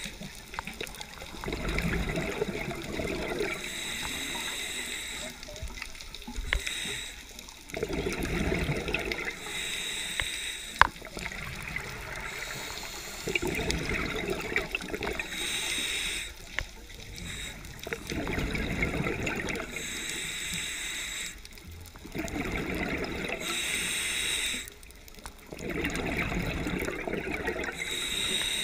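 Scuba diver breathing through a regulator underwater: a hissing inhale, then a longer bubbling exhale, repeating about every five to six seconds. A single sharp click about eleven seconds in.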